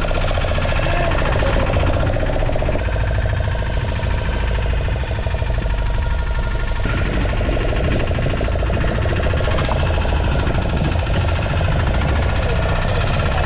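Fishing boat's engine running steadily, a continuous droning hum over a low rumble.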